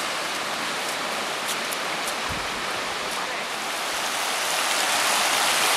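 Steady rush of a flowing stream, an even hiss that grows a little louder over the last couple of seconds.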